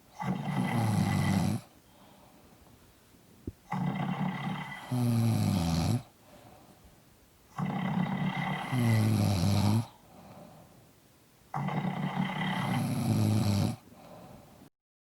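Two people snoring in their sleep: four long snores about every four seconds, some in two parts with a sliding pitch, with quiet breathing gaps between. The recording cuts to dead silence just before the end.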